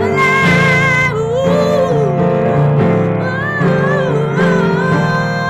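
A woman singing long, held notes that waver and glide up and down in pitch, over an instrumental backing track with steady low notes.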